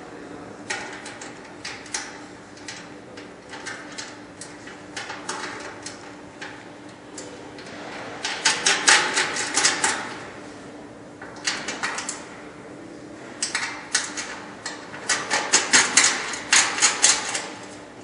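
Bolts being tightened on a conveyor's aluminium frame and steel leg bracket: bursts of rapid sharp clicking, densest about halfway through and again near the end, over a faint steady hum.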